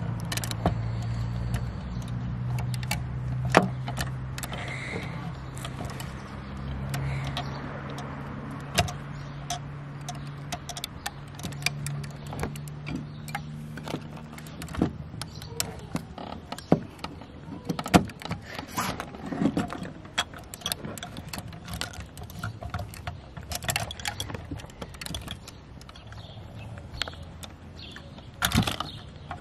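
Clicks and clatter of a die-cast toy front loader garbage truck being worked by hand: its front forks lifting a toy dumpster and the dumpster's lid flipping open as it tips. A low steady hum runs under the first half and fades out about halfway through.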